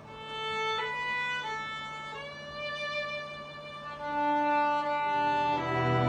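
Solo violin playing a slow, exposed melody in long held notes, with a short slide between notes about two seconds in. About five seconds in, the string orchestra comes back in underneath with low sustained notes.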